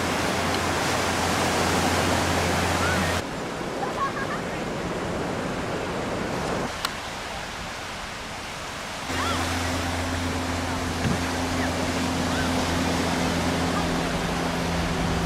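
Ocean surf washing onto a beach, a steady rushing noise that changes abruptly about three seconds in and again about nine seconds in, with faint distant calls over it.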